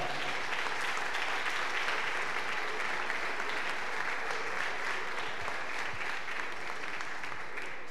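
Audience applauding steadily after a stand-up punchline.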